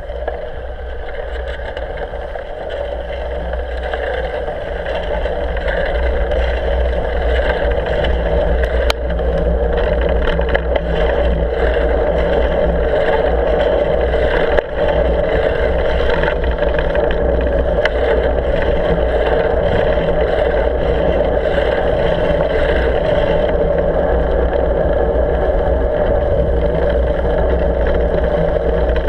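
Steady whirring hum of a bike riding along a packed-snow road, with tyre and wind noise on the handlebar mount. It builds over the first few seconds, then holds level, with one brief click partway through.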